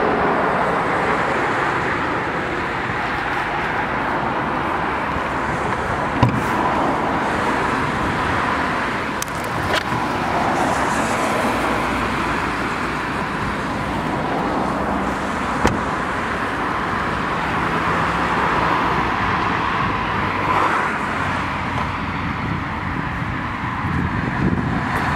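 Steady road traffic noise, with a few short sharp knocks.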